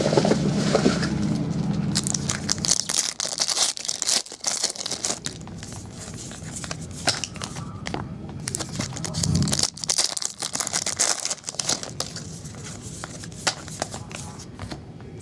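Foil trading-card pack wrappers crinkling and tearing open, with the rustle and clicking of the cards being handled and flipped through. A low hum runs under the first two or three seconds.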